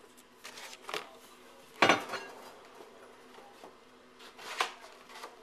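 Clinks and knocks from a heavy steel carcass-splitter cleaver being handled, with one sharp, loud knock about two seconds in and a few lighter clicks around it.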